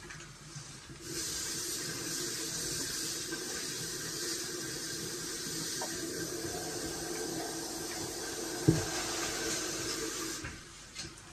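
Kitchen tap running into a stainless steel sink: turned on about a second in, a steady rush of water, shut off near the end. One sharp knock partway through.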